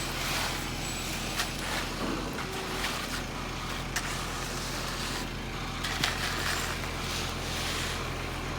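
A heavy vehicle engine running steadily, with a few sharp clicks and patches of hiss over it.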